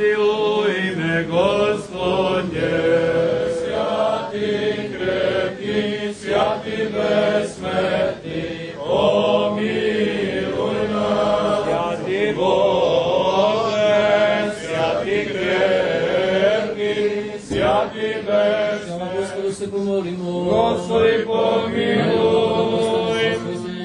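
Several men's voices chanting Serbian Orthodox liturgical chant in a continuous flowing melody over a steady low held note, as part of a blessing of water.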